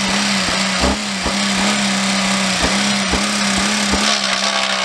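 Chevrolet Impala's engine held at high revs with the throttle feathered, its pitch almost steady and wavering only slightly, with irregular low thuds under it. The engine is being run hard on purpose with a blown head gasket, to try to blow it.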